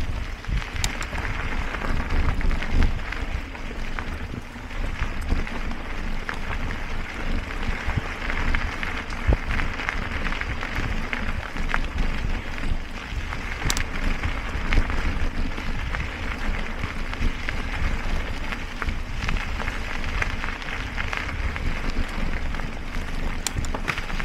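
Mountain bike riding down rooty, rocky forest singletrack, heard on a ride-mounted camera: a continuous rumble of wind and tyre noise on the microphone, with scattered sharp clicks and rattles as the bike goes over roots and rocks.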